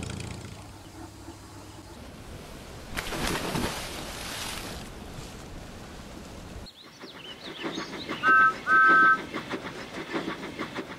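A train running along the track with an even clickety-clack of wheels over the rails. About eight seconds in come two short toots of a train whistle, each two notes sounding together; these are the loudest sounds. Earlier there is a rushing burst of noise lasting about two seconds.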